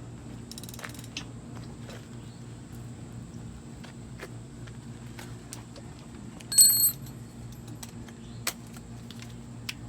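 Small metallic clicks and ticks of hand tools and loose parts being handled as the loosened rear axle nut is worked off. About six and a half seconds in there is one loud, brief ringing clink of metal on metal, over a steady low hum.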